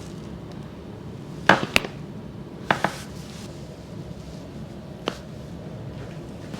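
Joints cracking during a chiropractic adjustment: a quick double crack about a second and a half in, another double crack near three seconds, and a single crack around five seconds.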